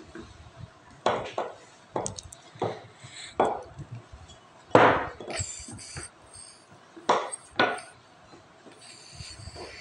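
Wooden rolling pin rolling out dough on a wooden chopping board. About nine uneven knocks and strokes of wood on wood, the loudest about halfway through.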